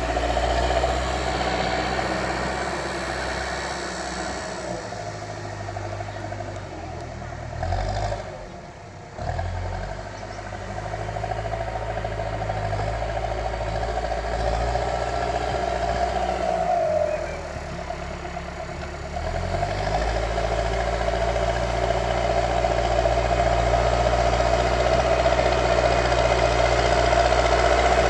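Backhoe loader's diesel engine running under work, its engine note stepping up and down several times with a brief dip in loudness about a third of the way in and a rise in revs past the two-thirds mark.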